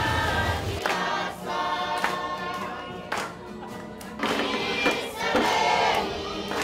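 A choir singing, several voices together in harmony.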